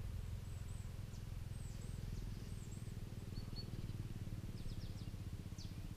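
Small birds calling with thin, high, repeated notes, including a quick run of ticks near the end, over a steady low rumble.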